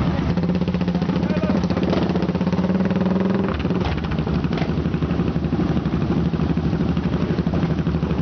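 Several motorcycle engines running together as a group of riders pulls away. One engine's note climbs slightly and then drops about three and a half seconds in.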